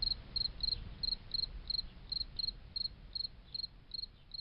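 Cricket chirping in short, even pulses, about three chirps a second, over a steady low rumble.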